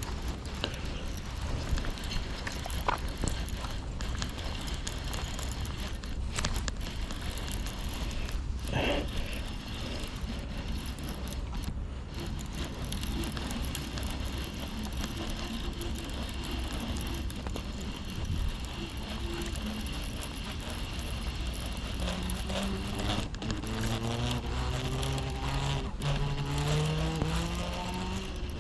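Steady outdoor rumble with a faint high hiss. Over the last several seconds an engine is heard speeding up, its pitch rising steadily.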